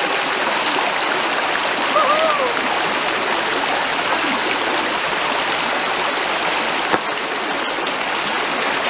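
River water rushing steadily over stones in a shallow stream.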